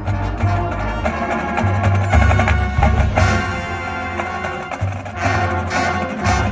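High school marching band playing loudly: sustained brass and wind chords over repeated sharp percussion hits and heavy low drum notes.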